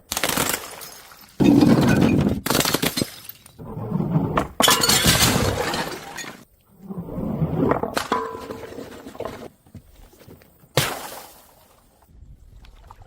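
Glass bottles shattering one after another, several separate smashes, each followed by tinkling shards.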